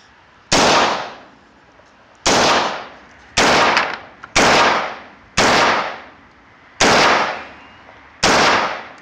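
AR-15 rifle in 5.56×45/.223 firing seven semi-automatic shots at an uneven pace of about one a second. Each sharp report dies away over roughly half a second.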